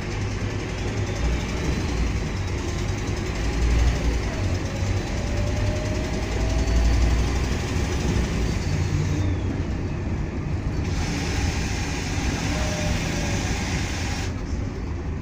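Scania K230UB Omnilink bus heard from inside the saloon: the diesel engine and ZF automatic gearbox pull the bus away and accelerate. A deep rumble swells twice, a faint drivetrain whine rises in pitch a few seconds in, and road noise runs underneath.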